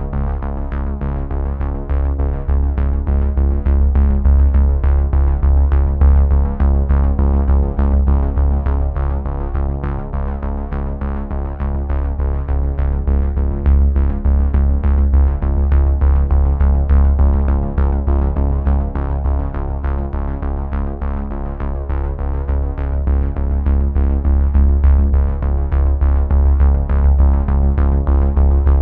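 Background electronic music: sustained synthesizer chords over a steady bass with a fast, regular beat.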